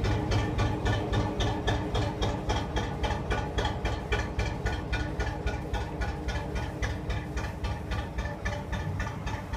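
Narrowboat's National 2DM twin-cylinder diesel engine running under way with a slow, even beat of about six pulses a second, getting a little quieter toward the end.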